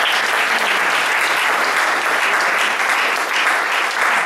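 Congregation applauding in praise of the Lord, a steady, unbroken wash of many hands clapping.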